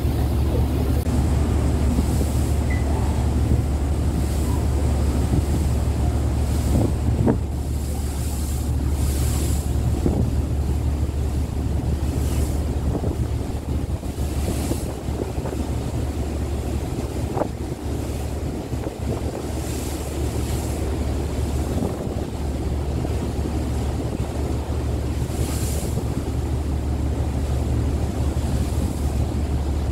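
A ferry's engines running with a steady low hum under the rush of water and wind on the open deck, with gusts hissing across the microphone every few seconds.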